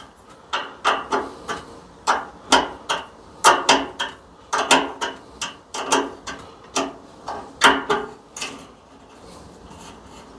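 Irregular clicking and clinking of a small wrench turning the little flare-fitting nuts on a gas water heater's pilot tubing, about two or three clicks a second, dying away near the end.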